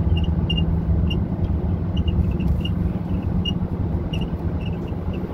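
Car cabin noise while driving: a steady low rumble of engine and tyres on the road, with a faint steady hum and a few scattered faint high ticks.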